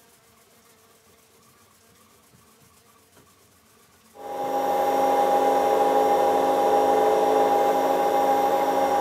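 A cloth is rubbed faintly against a pen blank spinning on a wood lathe. About four seconds in, a CamVac CGV336-4 dust extractor comes on suddenly and runs loud and steady: a rushing drone with a steady whine.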